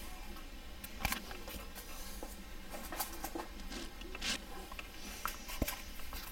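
Light clicks, taps and faint scrapes of hands handling a plastic scale model aircraft over a cutting mat, heard as scattered small knocks, over a faint steady hum.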